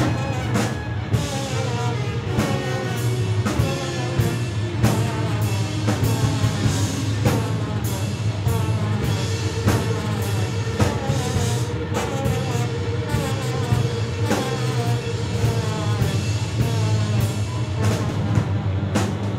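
Live band playing loud rock music, with a drum kit keeping a steady beat under trumpet and other melodic lines.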